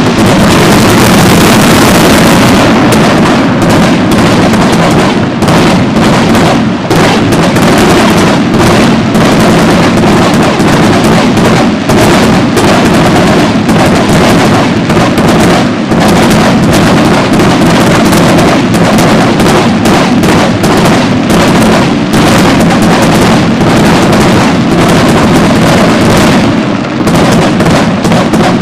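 Fireworks going off in a dense, unbroken barrage of bangs and crackle, very loud throughout.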